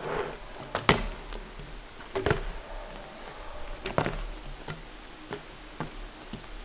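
BMX bike landing hops and tricks on asphalt: sharp clacks and bangs of tyres and frame hitting the road. Three loud impacts come about a second and a half apart, the third the loudest, followed by several fainter knocks as the rider moves away.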